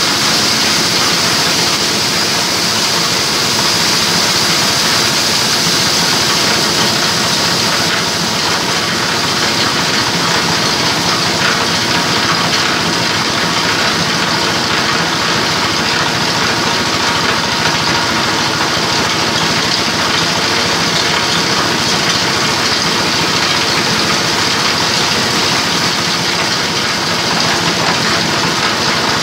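A blue multipurpose chopper-grinder mill driven by an 8 hp diesel engine, running steadily and loudly as material is fed into its hopper to be ground to powder.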